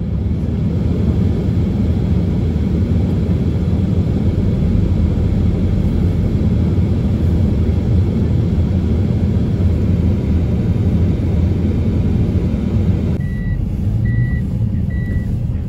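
Steady low rumble of a car's tyres and engine heard inside the cabin while driving on a packed-snow road. About 13 s in the rumble drops and a vehicle's reversing alarm starts beeping, a single high tone a little more than once a second.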